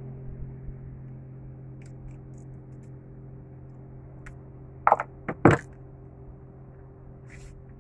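A few sharp knocks and thumps on a fiberglass boat deck, bunched together about five seconds in, over a steady low hum.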